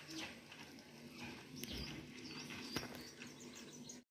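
Faint outdoor background with small birds chirping now and then in short, quick high notes.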